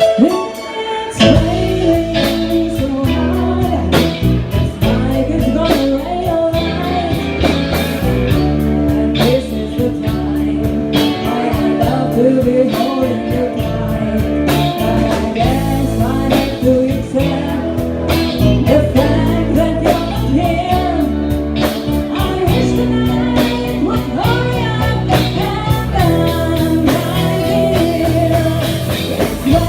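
A band playing a blues-rock song, with guitar, bass and a steady drum beat, and singing. The music starts about a second in.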